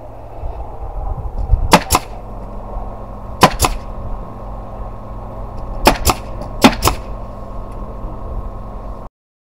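Pneumatic brad nailer firing four times into the wooden planter's top trim, each shot a sharp double crack, over a steady low rumble. Everything cuts off abruptly near the end.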